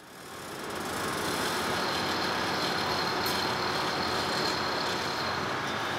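Steady machinery noise of a ship's engine room: an even, continuous running sound with no rhythm, fading in over about the first second, with a faint high steady whine through the middle.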